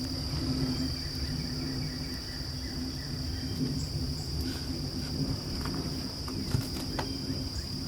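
Steady, high-pitched insect chorus droning without a break, over a low rumble, with a few faint clicks near the end.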